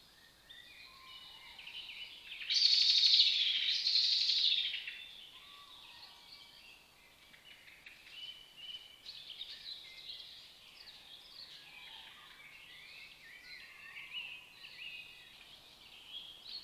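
Several songbirds singing in a spring woodland chorus. About two and a half seconds in, one much louder song in two phrases lasts about two and a half seconds.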